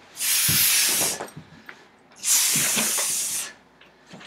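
A man hissing in imitation of a snake: two long hisses, each a little over a second, about two seconds apart.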